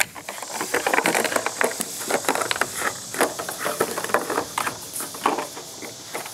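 Empty plastic water bottle crackling and crinkling in quick, irregular bursts as a dog bites and shakes it.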